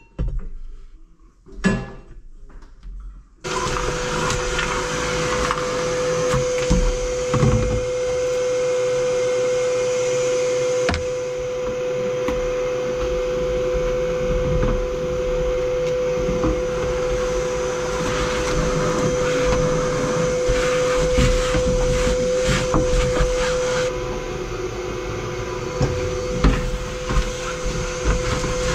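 A few clinks and knocks, then a shop vacuum switches on about three and a half seconds in and runs steadily with a strong hum. Its hose sucks dirt off a tractor cab floor, with occasional clicks and rattles.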